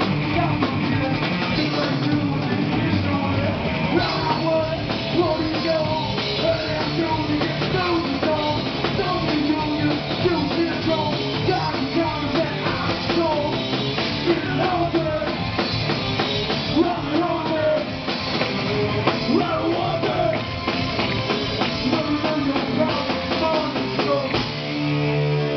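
Live punk band playing loud and fast: drum kit, distorted electric guitar and bass, with a singer's vocals through the PA. About a second before the end the full band stops and a held chord rings on.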